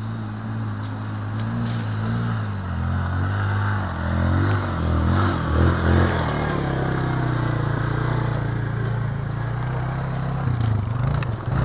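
ATV engine running on a woodland trail. Its pitch rises and falls with the throttle for the first half, then holds steady before easing off near the end.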